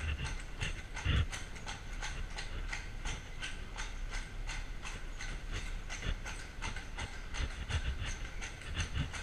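Carriage horse's hooves clip-clopping steadily on a stone-paved street, with the horse-drawn carriage's wheels and body rattling over the stones.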